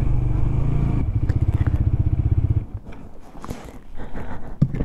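Motorcycle engine running, settling into a fast even idle beat, then switched off about two and a half seconds in. Scattered light clicks and knocks follow, with one sharp click near the end.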